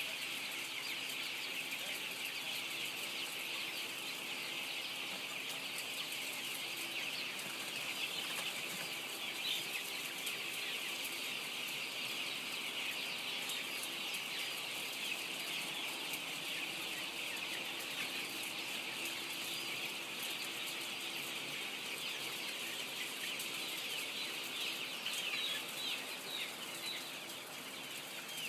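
A large flock of young chicks peeping and cheeping nonstop, many high calls overlapping into a constant chorus. A faint steady hum sits beneath it.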